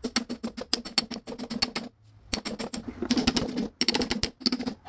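A fast run of sharp hammer knocks on a washing machine drum's badly corroded spider, breaking it away from the drive shaft, with a short pause about two seconds in.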